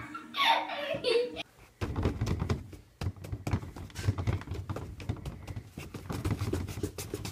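Fists punching a heavy punching bag: an irregular run of dull thuds, starting about two seconds in, after a short burst of laughter at the start.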